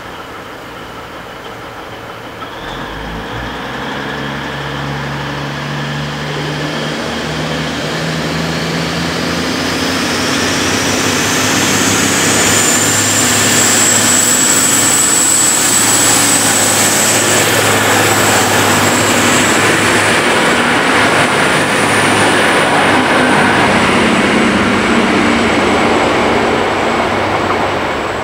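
V/Line VLocity diesel railcar set pulling away and accelerating past. Its underfloor diesel engines rev up, and a high whine climbs in pitch, then holds steady as the train gathers speed. The sound builds over about ten seconds, stays loud while the train passes, and begins to fall away near the end.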